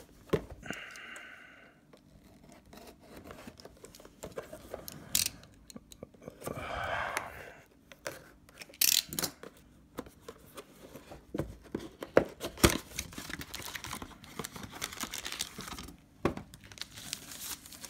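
Packaging of trading card hobby boxes and packs being opened by hand: plastic wrap and foil tearing and crinkling, with scattered sharp clicks and taps of cardboard and cards being handled.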